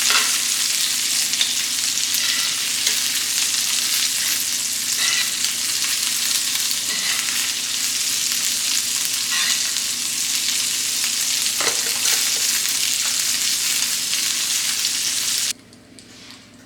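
Steak searing in butter in a hot pan, a loud steady sizzle with a few faint clicks, cutting off suddenly near the end.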